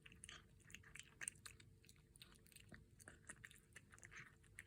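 A four-month-old kitten eating its breakfast: faint, irregular chewing and crunching with small clicks, several bites a second.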